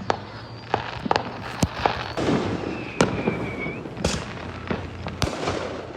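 Fireworks and firecrackers going off: a dozen or so scattered, irregular bangs and pops of differing loudness, with a thin, slightly falling whistle about two seconds in.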